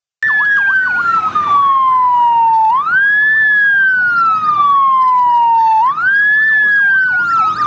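Fire engine sirens: a wail that slides slowly down in pitch and sweeps quickly back up, twice, with a faster yelp warbling up and down alongside it.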